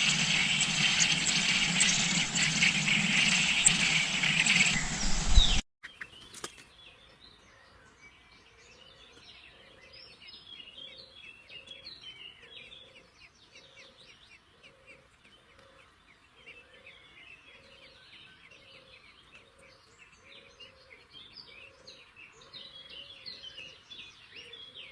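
A loud, steady noise for the first five seconds or so cuts off suddenly. Then come faint, scattered high chirps of small birds, over a soft low note that repeats about once a second.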